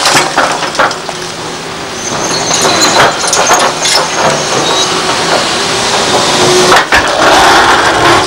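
Liebherr R964 excavator bucket digging and scraping through brick and concrete demolition rubble: stones crunching and clattering against the steel bucket and teeth, over the steady drone of the diesel engine. There are a few brief high squeals in the first half, and the noise grows into a louder rush near the end.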